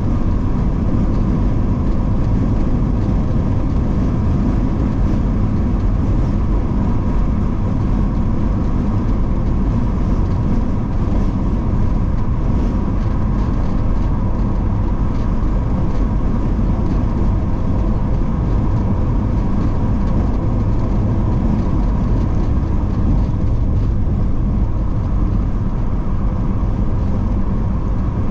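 Car driving at steady speed, heard from inside the cabin: an even low rumble of engine and tyre noise with a faint steady hum.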